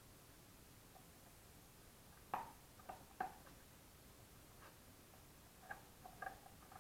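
Near silence broken by a few faint, short taps and ticks, about seven in all, from a big dog and small kittens moving about on a tile floor; the loudest comes a little over two seconds in.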